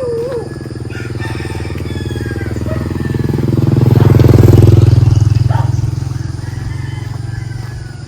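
A motor vehicle passing by, its engine growing louder to a peak about four to five seconds in, then fading away.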